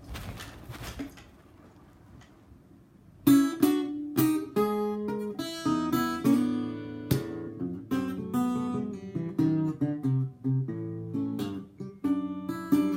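Eko NXT parlour acoustic guitar being strummed, chord after chord with sharp attacks and ringing strings, starting about three seconds in after a brief rustle at the start.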